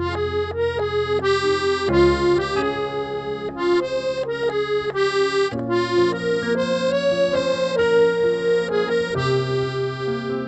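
Piano accordion playing a melody of short notes over held bass notes, the bass changing three times.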